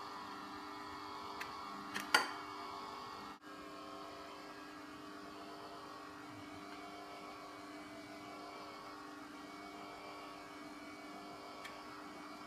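Philips Pasta Maker's electric motor running steadily as it extrudes spaghetti, a steady hum with several steady tones. A sharp click about two seconds in.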